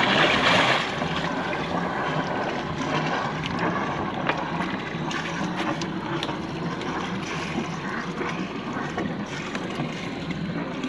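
Water splashing and sloshing with wind buffeting the microphone; the splashing is loudest in the first second, where a swimmer kicks at the surface.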